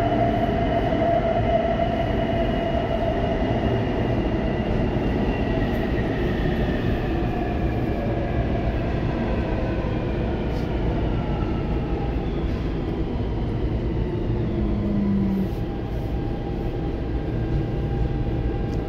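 Inside a C321 steel-wheel metro train running through the tunnel: a steady rumble of wheels on the rails, with a motor whine that falls in pitch as the train slows for the next station.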